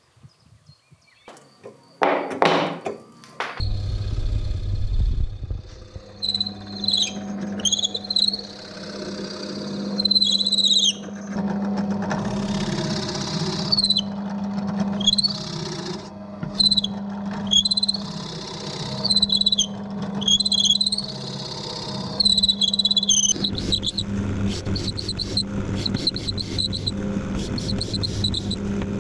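Benchtop drill press motor starts about three seconds in and runs with a steady hum while a plug cutter bores into an oak offcut, giving repeated short high squeals each time it bites into the wood.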